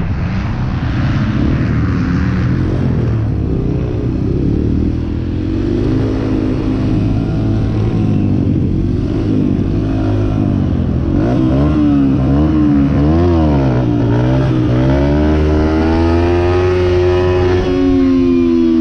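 Small ATV engine revving up and down under throttle. Its pitch swings quickly several times about two-thirds of the way through, then rises and falls in one long sweep near the end.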